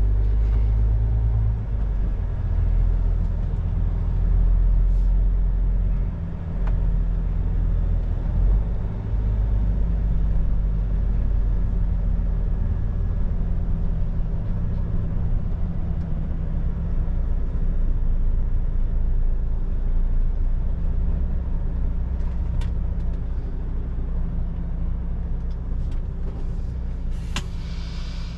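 MAN TGX truck's diesel engine running at low speed, heard from inside the cab as the truck rolls slowly, easing off toward the end. A short hiss comes near the end.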